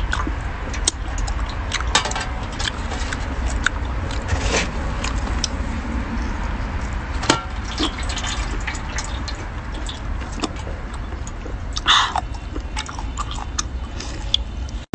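Wet mouth sounds of shellfish being eaten by hand: smacking, sucking and squelching of the saucy meat, in many short clicks with a louder slurp about twelve seconds in. A steady low rumble runs underneath.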